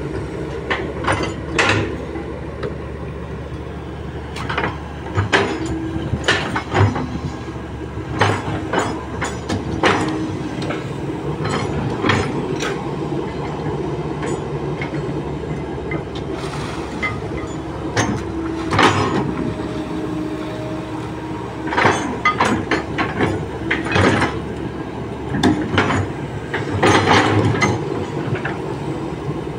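Kobelco SK200 hydraulic excavator's diesel engine running steadily under load, with irregular clanks and knocks from the bucket and arm as it digs mud and woody debris out of a canal.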